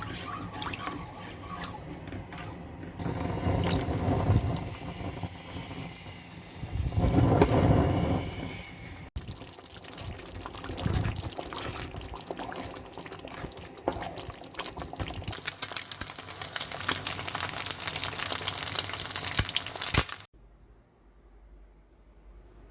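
Water pouring and running during kitchen food preparation, in a few edited stretches. It is louder and brighter in the last stretch, then cuts off abruptly about 20 seconds in.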